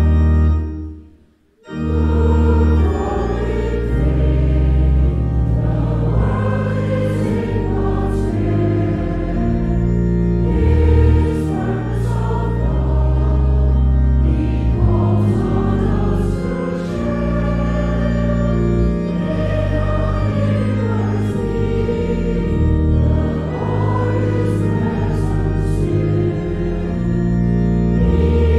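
A hymn sung by voices with organ accompaniment. The music breaks off briefly about a second in, between verses, then the next verse begins.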